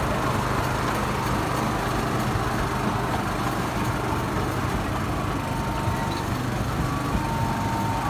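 A small amusement-park train's motor running steadily as it rolls along its narrow-gauge track, heard from on board as an even drone with a constant low hum.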